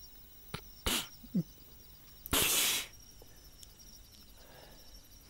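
Faint steady chirring of crickets in the background, with a few short breathy sounds. The loudest is a sharp half-second exhale about two and a half seconds in.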